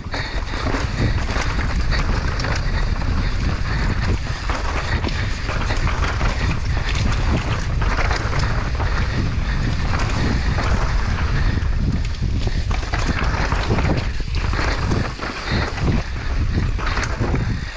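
Mountain bike riding fast downhill over loose dirt and rocks: tyres crunching and skidding, the bike rattling over bumps, under heavy wind buffeting on the camera microphone.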